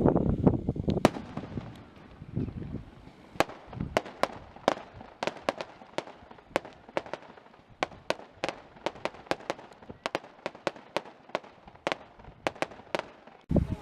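Fireworks display: deep booms at first, then a long run of sharp crackling pops, several a second, from crackling shells bursting overhead.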